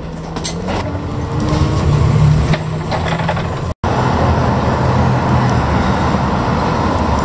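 City bus running, heard from inside the bus: a low steady engine drone with a few rattles. About four seconds in it cuts abruptly to steady street traffic noise.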